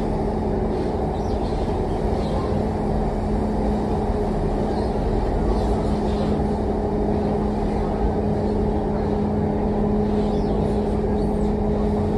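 Steady running noise inside a moving passenger train carriage: a constant low rumble with a steady hum from the traction beneath.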